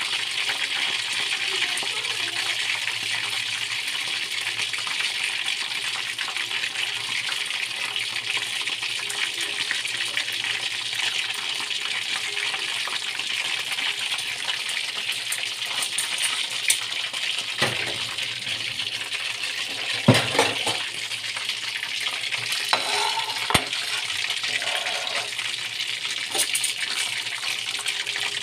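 Chicken pieces deep-frying in hot oil in a wok: a steady, loud sizzle with fine crackling. A few short knocks come in the second half, the loudest about two-thirds of the way through.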